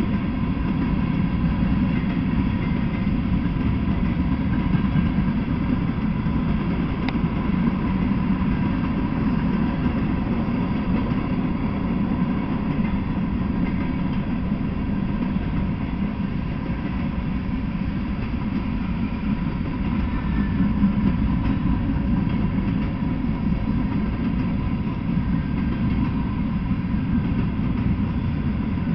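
Freight train of covered hopper and tank cars rolling past, a steady low noise of wheels on rails with no breaks or sudden knocks.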